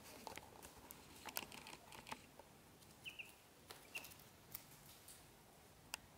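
Faint scratchy clicks and rustling as ducklings shuffle in a woven wicker basket, with two brief, soft duckling peeps about three and four seconds in.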